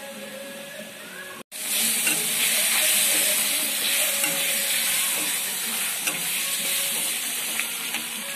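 Food frying in hot oil in a pan. A loud sizzle starts suddenly about a second and a half in and slowly dies down, with a few light clicks near the end.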